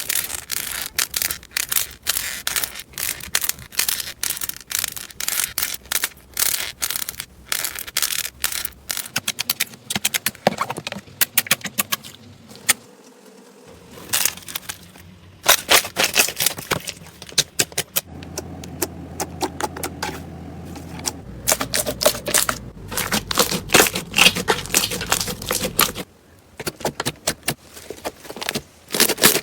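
Hands squeezing and poking crunchy slime, giving rapid crackling and popping clicks that come in dense runs with a few short pauses.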